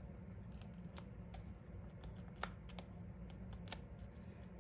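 Scattered small clicks and ticks of fingernails picking at and peeling the stubborn release liners off Stampin' Dimensionals foam adhesive squares and handling the paper, over a low steady hum.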